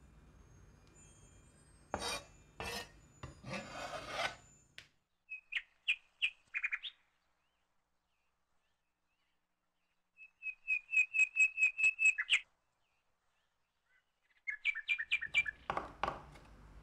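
Kitchen knife work on a plastic cutting board: a cleaver scraping across the board a few times, then bursts of quick chopping strokes, about five a second, each with a short high metallic ring, as spring onions are sliced.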